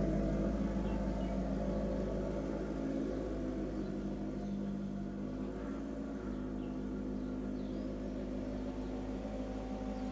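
Maserati GranTurismo Sport's V8 engine running at low revs while the car reverses and creeps along at walking pace, a steady deep hum that fades a little over the first few seconds as the car moves off.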